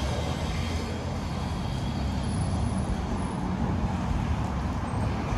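Steady city street traffic: cars and heavier vehicles running past in a continuous rumble of engines and tyres, with no break.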